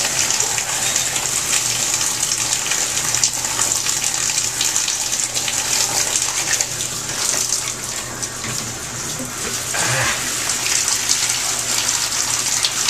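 Shower running, water spraying steadily from the shower head and splashing, with a slight dip in level about eight seconds in.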